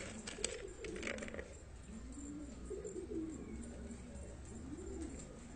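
Domestic pigeons cooing, several rising-and-falling coos overlapping one after another, with a few sharp clicks in the first second and a half.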